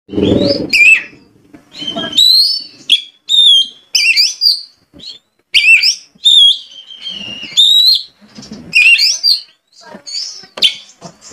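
Oriental magpie-robin singing in full song: a fast run of short, loud whistled phrases that swoop up and down in pitch, mixed with sharp chips, each phrase broken off by a brief pause.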